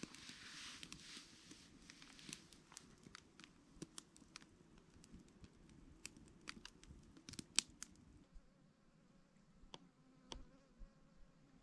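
Faint buzzing of a fly or similar insect flying close by, wavering in pitch, with scattered small sharp clicks and ticks throughout.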